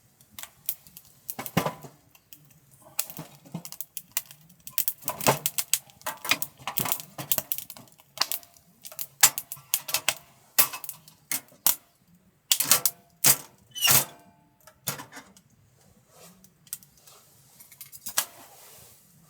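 Irregular clinks and clatter of small metal camp gear being handled, some strikes ringing briefly, with a few louder knocks around the middle.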